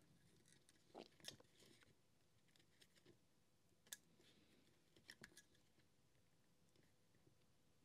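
Near silence with a few faint clicks and taps as plastic heat-gun parts are handled and fitted together: about a second in, near four seconds, and a quick cluster around five seconds.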